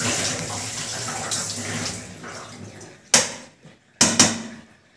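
Tap water running into a steel pan as it is rinsed, fading out after about two seconds, then three sharp metallic clanks from the pan.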